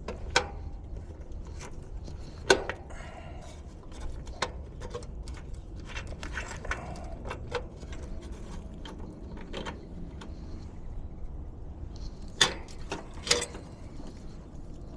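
Irregular clicks and clanks of hand tools and metal parts being handled, over a low steady rumble, with four louder knocks: one near the start, one about two and a half seconds in, and two close together near the end.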